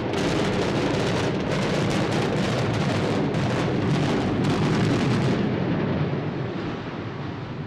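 Explosive demolition of a long concrete apartment block: a rapid string of charges cracking in sequence, merging with the rumble of the building coming down. The cracking stops about five and a half seconds in, leaving the rumble fading away.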